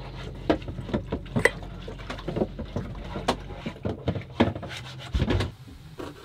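Irregular clinks and knocks of a metal stovetop moka pot and other kitchenware being handled on a wooden counter, over a low steady hum that fades out about two-thirds of the way through.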